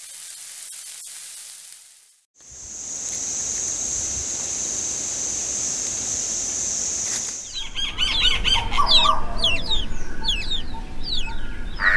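A faint hiss, then a steady high-pitched drone for several seconds, giving way about seven seconds in to birds calling outdoors with many quick, falling chirps.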